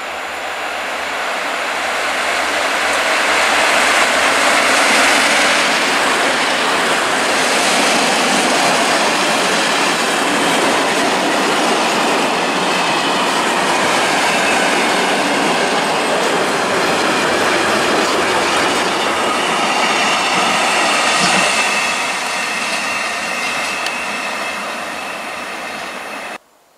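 Freight train hauled by an ET22 electric locomotive passing close by, its wagons rumbling and wheels clicking over the rail joints. It swells over the first few seconds as the locomotive arrives and stays loud as the mixed wagons roll past. Thin high ringing tones rise over the wheel noise later on, and the sound cuts off sharply near the end.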